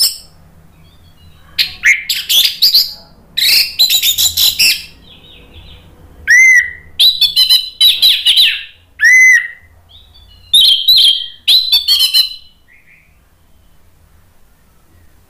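Orange-headed thrush singing loud full song: bursts of quick, varied whistled and chattering phrases with a couple of clear arching notes, stopping a few seconds before the end.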